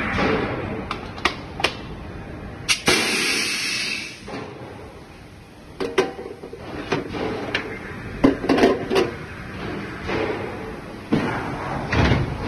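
Machinery on a sheet-metal pan welding line: scattered sharp metallic clicks and knocks, a burst of hissing about three seconds in, and a cluster of louder clanks around eight seconds in.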